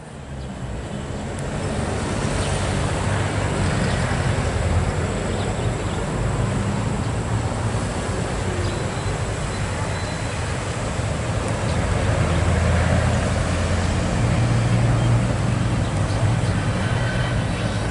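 Steady street traffic noise, a low rumble of passing vehicles that swells and eases, fading in over the first couple of seconds.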